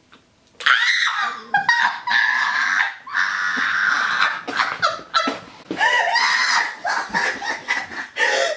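People screaming and shrieking in disgust, mixed with laughter, starting about half a second in: a reaction to chewing a foul-flavoured BeanBoozled jelly bean.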